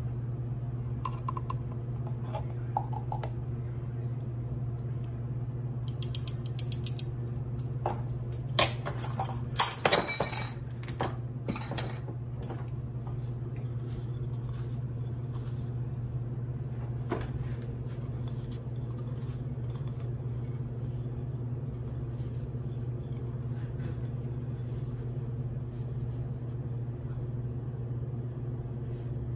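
Metal measuring spoons on a ring rattling and clinking against a small ceramic bowl in a burst of sharp clicks, starting about six seconds in and stopping about twelve seconds in, with one more click a few seconds later. Under it a steady low hum runs throughout.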